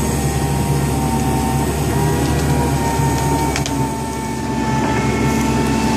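Case 81P hydraulic excavator running under load as its arm lifts an uprooted tree stump: a steady engine drone with a steady high whine over it, and a couple of brief sharp clicks about three and a half seconds in.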